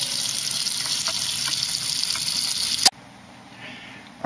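Kitchen tap running, a thin stream of water pouring into a stainless steel pot full of raw peanuts to fill it. The water stops abruptly with a click near three seconds in.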